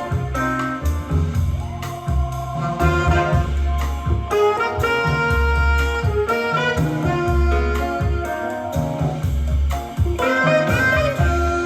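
Instrumental jazz with a saxophone lead and brass over a pulsing bass line, played through an Akai GX-9 cassette deck during a type I tape recording test with Dolby C.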